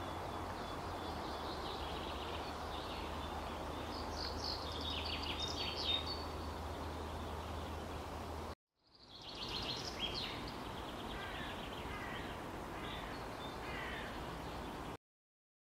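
Outdoor ambience: small birds chirping in short, repeated calls over a steady rushing background with a low hum. The sound drops out briefly about halfway through, fades back in, and cuts off just before the end.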